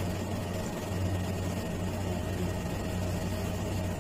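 A steady low hum with no other events.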